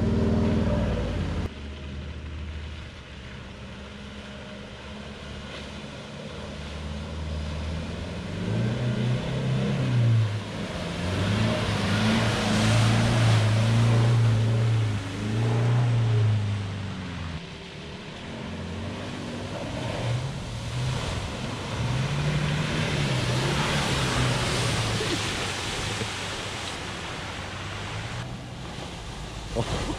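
Four-wheel drives driving through deep mud one after another, engines revving up and down, with spinning tyres spraying mud. It swells loudest twice, in the middle and again later, as vehicles push through.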